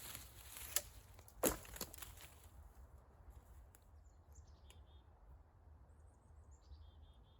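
Three sharp cracks over a hiss in the first two seconds, the loudest about a second and a half in. Then faint songbird chirps, short high notes in quick groups of three.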